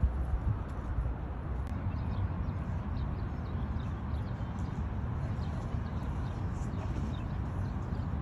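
Outdoor ambience picked up by a phone's microphone: a steady wind rumble on the mic, with a few faint high chirps scattered through.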